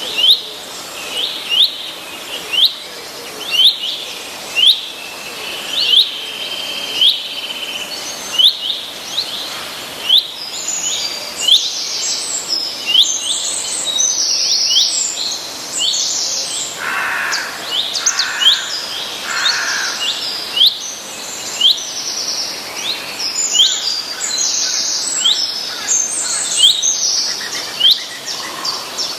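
Several songbirds singing and calling together. One repeats a short, sharp chirp over and over, roughly once a second, and more birds join in with busier, higher song from about ten seconds in.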